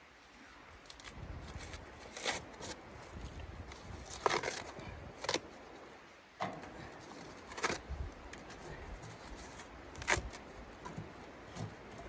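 Kindling and tinder being laid into the firebox of a small portable steel wood stove: a handful of short knocks and scrapes at irregular intervals, with a low rumble underneath.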